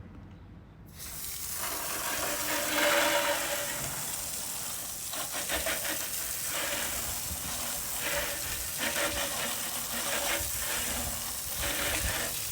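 Water spraying hard from a hose nozzle onto an RV tire, rinsing it off. The spray comes on about a second in and carries on as a steady hiss that surges and pulses as the stream moves over the tire.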